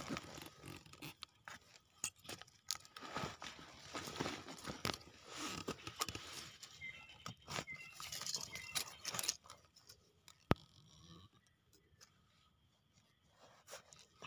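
Knife blade digging and scraping in soil, with irregular crunches, scrapes and small knocks as the earth around termite mushrooms is loosened. It goes quieter after about eleven seconds.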